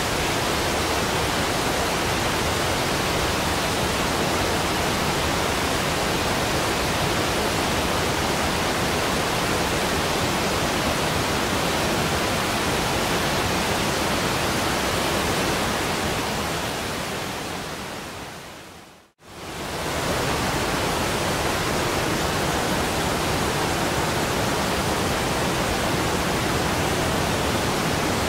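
Steady, loud rush of floodwater pouring out of the Three Gorges Dam's spillway outlets. It fades away from about 16 seconds in, drops to near silence for a moment just past 19 seconds, then comes straight back at full strength.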